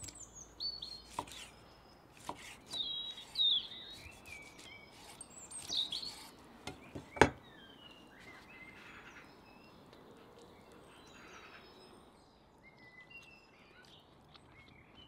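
Songbirds chirping and singing, with knife clicks and knocks on a wooden chopping board as meat is sliced; the loudest is a sharp knock about seven seconds in. The birdsong thins out in the second half.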